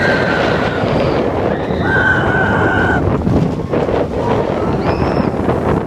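Expedition Everest steel roller coaster train running fast along its track. Wind rushes over the phone's microphone over the rumble of the train, with long, high, steady squeals, the strongest about two seconds in.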